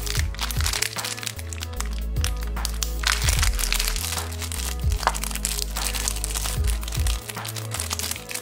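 Clear plastic wrapper of a small sticker packet crinkling and crackling as fingers handle and open it, over background music with a steady low bass line.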